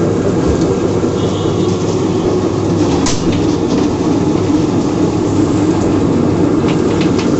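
Rotary drum chicken plucker running: a loud, steady mechanical rumble and clatter, with a few sharp knocks, as the scalded birds tumble against its rubber plucking fingers.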